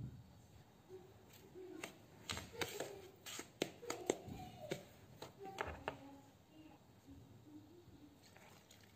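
Metal spoon stirring dry semolina and flour in a plastic mixing bowl: a run of clicks and scrapes as the spoon knocks against the bowl, thickest in the middle, then tapering off.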